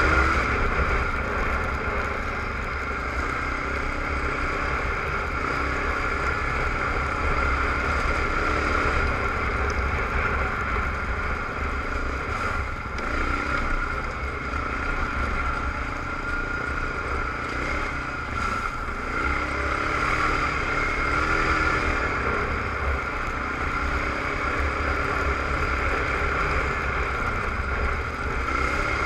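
Suzuki ATV engine running while riding, its pitch rising and falling several times, over a constant low rumble.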